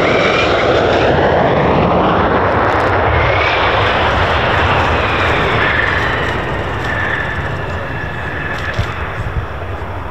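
F-15 fighter's twin jet engines during landing and rollout, a loud steady roar with a high whine that rises and falls, easing off over the second half. The jet has lost its hydraulics, so it cannot brake and is rolling out to catch the arrestor cable with its tail hook.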